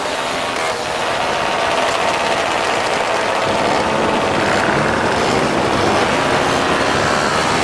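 Several moped engines running together on a group ride, their pitches sliding up and down as the riders change speed, over a steady rushing noise.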